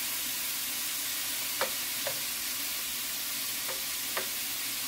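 Thinly shaved steak sizzling steadily in a frying pan over medium-high heat. It is being stirred with a spatula, which knocks against the pan four times.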